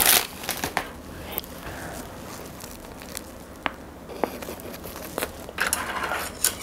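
Crusty baguette sandwich being bitten and chewed: a sharp crunch of the crust at the start, then scattered crackles while chewing, with a denser burst of crunching near the end.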